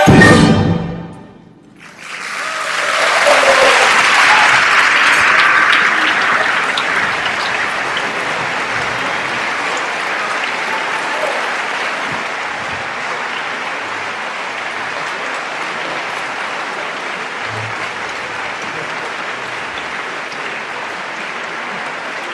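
The last chord of a choir and orchestra cuts off about half a second in. After a moment of silence the concert audience breaks into applause, which swells quickly and then goes on steadily.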